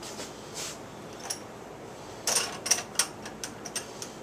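A quick irregular run of sharp clicks and knocks, about halfway in, as a towel-wrapped shotgun is set into a vise and the vise is closed on it.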